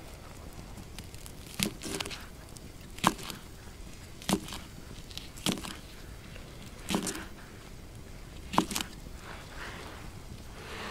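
A knife slicing through a sausage on a wooden block, each cut ending in a short sharp knock on the wood, six times at roughly even intervals.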